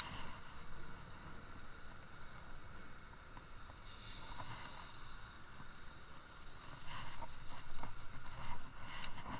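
Baitcasting reel being cranked to retrieve a lure, over steady wind noise on the microphone, with a few light clicks near the end.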